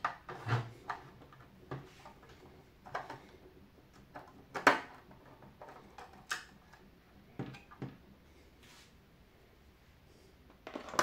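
Irregular clicks and knocks of the plastic housing and control board of a De'Longhi Special T capsule machine being handled and worked with a small Phillips screwdriver; the loudest knock comes about halfway through.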